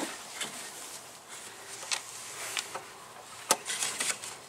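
Scattered sharp clicks and taps of a 1/4-inch socket and its drive knocking against metal and plastic engine parts as it is worked into a tight spot onto a screw. The loudest click comes about three and a half seconds in, followed by a few quick ones.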